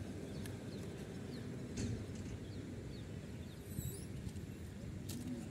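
Outdoor ambience: a steady low rumble with faint bird chirps and a few sharp clicks, the clearest about two seconds and five seconds in.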